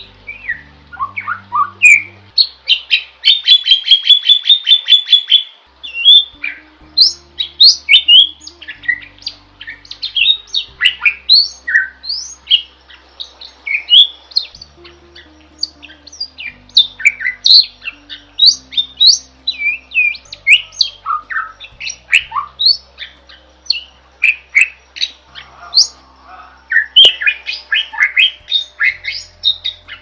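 Caged Asian pied starling (jalak suren) singing nonstop, in full song: a long, varied run of sharp whistles, chirps and harsh squawks, with a rapid trill of repeated notes a few seconds in.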